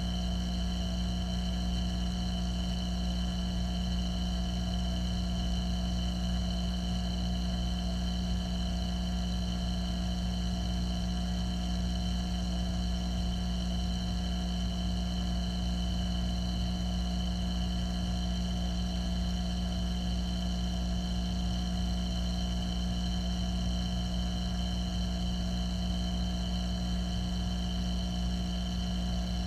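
Steady motor hum of a reef aquarium's water pumps, heard underwater: a low drone with several constant tones above it, never changing in pitch or level.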